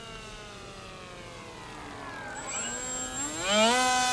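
Foamboard RC delta plane's electric motor and propeller whining as it flies past: a steady tone slides slowly lower, then about three seconds in sweeps sharply up in pitch and grows louder.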